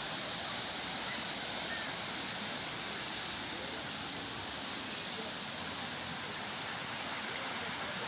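A small river running over rocks, a steady rushing hiss.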